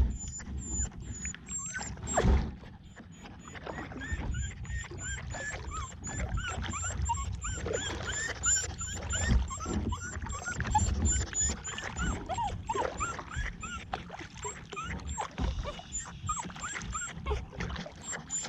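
Dog whining in many short, high squeaks, with a louder thump about two seconds in and a low rumble of water and boat noise underneath.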